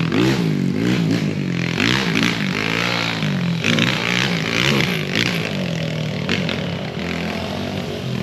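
A 190cc pit bike's single-cylinder four-stroke engine under riding throttle, revving up and down about once a second. It settles to a steadier, lower note in the last couple of seconds.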